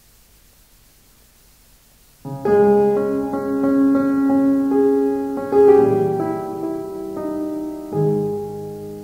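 Piano introduction to a choral song: faint hiss for about two seconds, then held chords under a slow melody, fading away near the end.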